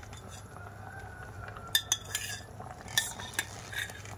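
A spoon stirring a pot of simmering bean stew, with a few sharp clinks against the stainless-steel pot.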